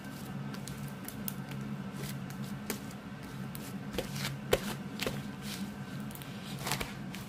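Slime being kneaded and squeezed by hand, making irregular sticky clicks and small pops, with one sharper pop about four and a half seconds in.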